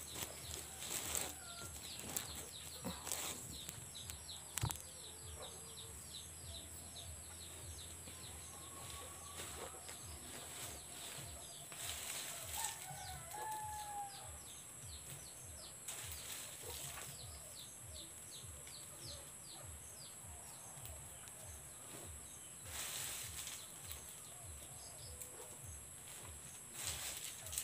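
Chickens clucking faintly with a few short calls, over a steady high hiss. A few brief rustles stand out, the loudest about twelve seconds in and near the end.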